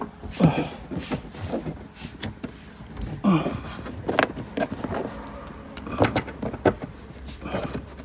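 Hard plastic of a VE Commodore tail light assembly being handled and fitted: irregular knocks and clicks, with a couple of short squeaky scrapes near the start and about three seconds in.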